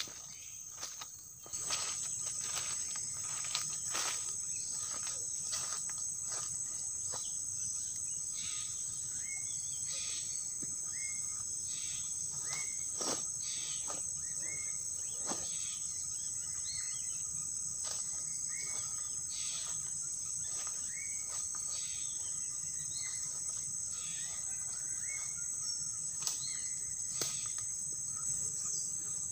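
Forest insects keep up a steady high-pitched drone, with short rising chirps repeating about once a second and a few scattered clicks. The sound becomes louder about a second and a half in.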